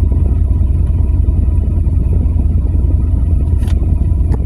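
Steady low rumble of an idling car engine, with two faint clicks near the end.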